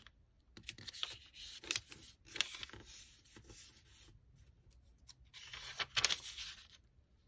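A 15 cm sheet of origami paper rustling and crinkling as it is folded in half, creased and opened back out, with a few sharper crackles of the paper. The loudest crackle comes about six seconds in, as the sheet is unfolded.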